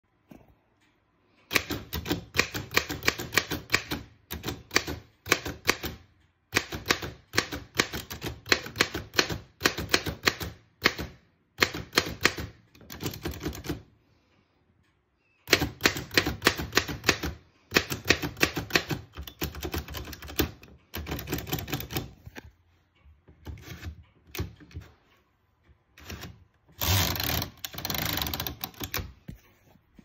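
Remington manual typewriter being typed on: fast runs of typebar strikes in bursts of a few seconds with short pauses between, thinning to scattered keystrokes later on. Near the end comes a continuous rattle lasting about two seconds.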